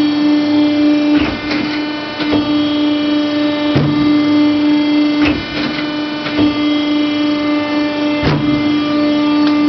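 Hydraulic guillotine shear running, its pump giving a steady, even hum, with sharp clacks from the machine at irregular intervals every second or two.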